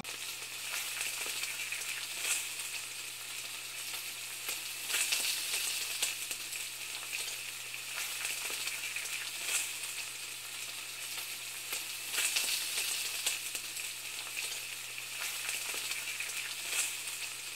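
Food frying in a pan: steady sizzling and crackling, with a low hum underneath.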